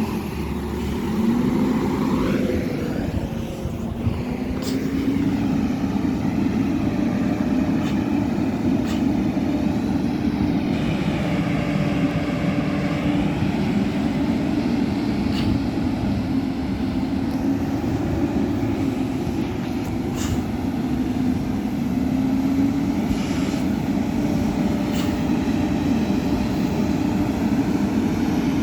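Peterbilt 520 McNeilus ZR garbage truck's engine running, its pitch rising about a second in and then holding steady, with a few sharp clicks over it.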